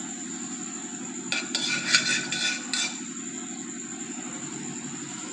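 Steel cooking pot and utensils clanking, a quick cluster of metallic knocks with a short ringing a little over a second in, over a steady low hum.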